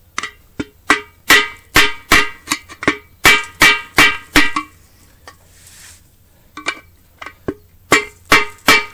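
Hammer blows on a flat steel bar set against the rusted, bolted flange of a water-pump pressure tank, each blow ringing through the steel tank. About twenty blows, two to three a second, with a pause of about two seconds in the middle. The flange is stuck fast and not coming loose.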